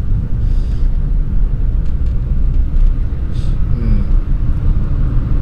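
Daihatsu Mira (L700S) kei car driving along, a steady low rumble of engine and road noise.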